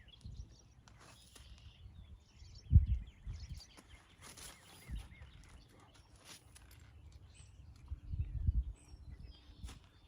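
A horse moving over arena footing, with a few scattered dull hoof thuds, while birds chirp faintly in the background.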